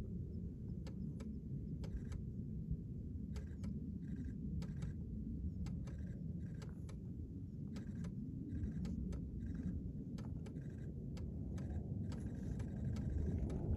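Low, steady outdoor rumble with scattered faint clicks. In the last couple of seconds a distant F-35 Lightning II jet begins to be heard, its sound slowly building.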